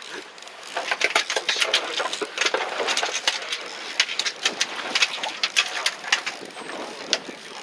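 A small baitcasting reel being cranked by hand, with many irregular clicks and rustling over a steady haze of wind and sea noise.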